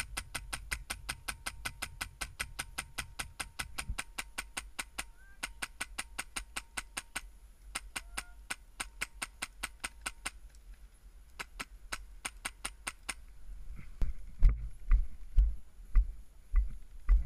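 Airsoft rifle fitted with a Polarstar HPA engine firing a long string of rapid, evenly spaced shots, about five a second, with a short break about seven seconds in and slower, sparser shots until about thirteen seconds in. Dull thumps follow near the end.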